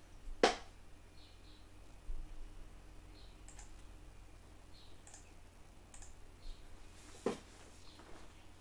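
Two sharp clicks at a computer, one about half a second in and another near the end, with faint short high-pitched blips in between.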